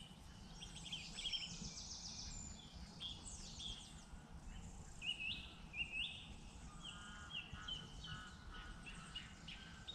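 Several songbirds singing and calling, with quick chirps, trills and short rising whistles, over a low steady background rumble.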